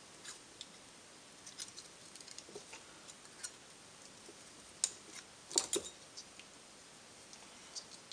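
Side cutters clicking and snipping on the wires and metal tabs of a cordless-drill battery pack as its terminal connector is cut free. Faint small clicks come throughout, with a few sharp snaps about five seconds in.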